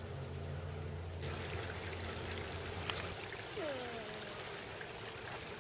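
Small woodland stream trickling, with a low hum that stops about three seconds in. A single sharp click comes near the middle, followed by a brief falling, whistle-like sound.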